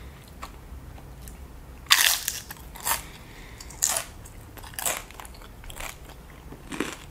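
Tortilla chips topped with cheese sauce being bitten and chewed: a loud crunch about two seconds in, then sharp crunches roughly once a second.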